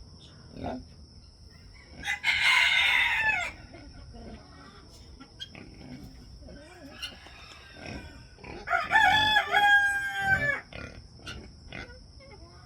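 Rooster crowing: a long, clear call of about two seconds that begins about nine seconds in and dips at the end, after a shorter, harsher call about two seconds in. A steady high-pitched whine runs underneath, with scattered small clicks.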